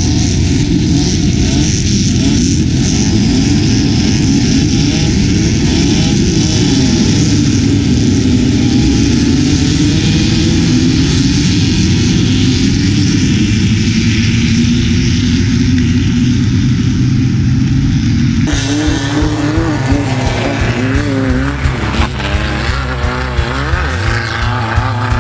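Off-road race vehicle engines running hard at high revs. About 18 seconds in the sound cuts to an engine whose pitch swings quickly up and down as it is revved on and off.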